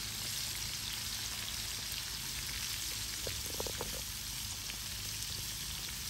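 Flour-dredged sardines frying in oil in a pan over a wood fire, a steady sizzle.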